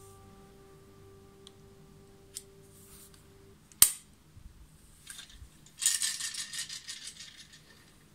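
A sharp click about four seconds in, then a rasping slide with fast ticks for about a second and a half, from a katana being handled in its scabbard.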